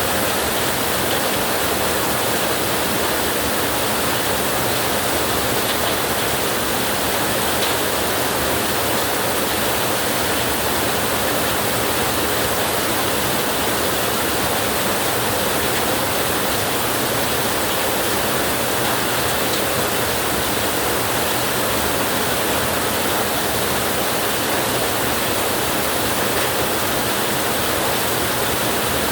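Heavy rain drumming on a tin roof, a dense steady hiss with no let-up and no thunder.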